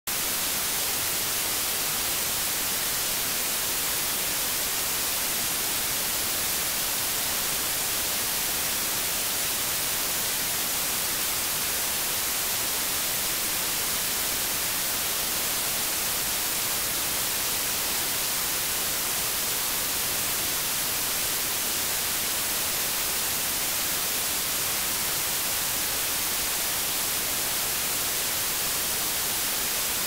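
Stereo white noise test signal: a steady, unchanging hiss spread evenly across the whole frequency range, the same in both channels.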